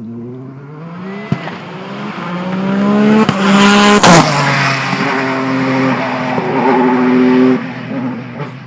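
Peugeot T16 Pikes Peak race car engine accelerating hard, its pitch climbing through several upshifts, each marked by a sharp crack. It passes close by about four seconds in, then runs on at a lower pitch and fades near the end.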